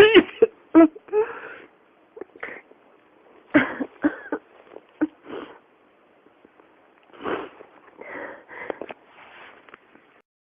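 A person in a coughing fit: three bouts of short, harsh coughs in quick succession, near the start, about three and a half seconds in and about seven seconds in, with breaths drawn in between, stopping shortly before the end.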